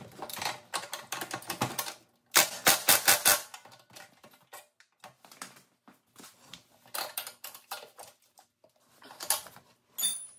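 Bursts of sharp metallic clicks and taps from tools and bolt hardware being handled on a go-kart frame. The quickest, loudest run of clicks comes about two seconds in, with scattered clicks later.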